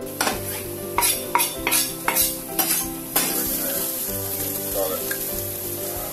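Bread cubes and onions sizzling in olive oil in a frying pan while a plastic spatula stirs them. About seven quick scraping strokes come in the first three seconds, then a steady sizzle.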